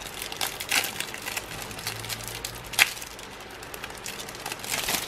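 Thin clear plastic wrapper crinkling as it is peeled open around a trading card, in scattered crackles with one sharp click a little past the middle and another flurry near the end.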